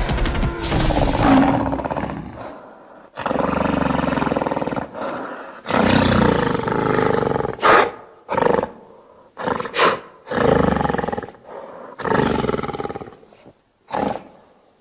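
Giant-ape creature sound effects built from King Kong roars: a string of separate roars and grunts. Several long roars are mixed with short, sharp bursts, and the sound cuts off near the end.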